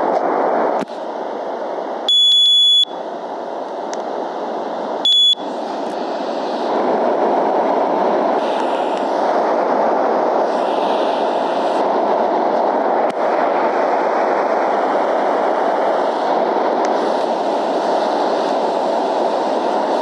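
Steady rushing fan noise of an air conditioner, with two high electronic beeps: one lasting almost a second about two seconds in, and a short one about five seconds in.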